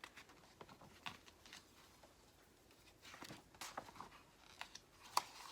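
Faint rustles and light clicks of a picture book's paper pages being handled and turned, with one sharper click about five seconds in.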